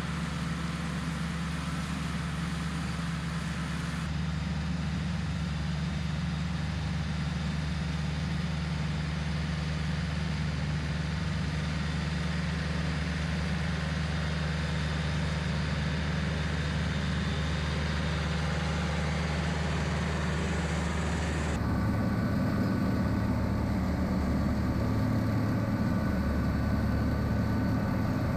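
John Deere 110 TLB engine running steadily while its PTO drives a 72-inch King Kutter three-blade, belt-driven finish mower. The tone changes about 4 seconds in and again about 21 seconds in, becoming slightly louder.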